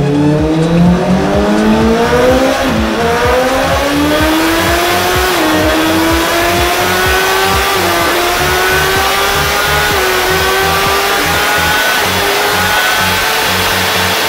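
2013 Honda CBR1000RR's inline-four engine at full throttle on a roller dyno, rising in pitch through the gears from second to sixth. Four quick upshifts come about every two and a half seconds, each a short dip in pitch, and then it pulls on in sixth. Electronic dance music with a steady beat plays underneath.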